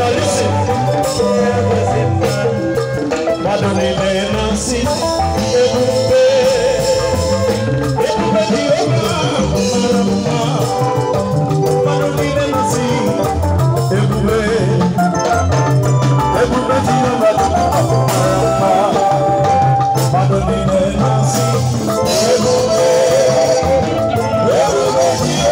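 Live band music with drum kit, electric bass and lead guitar playing a steady, continuous groove, a man singing over it into a microphone.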